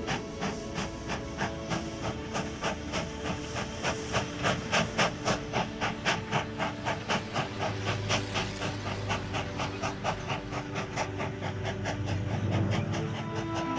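Steam locomotive chuffing at a steady pace, about four exhaust beats a second, with a hiss of steam.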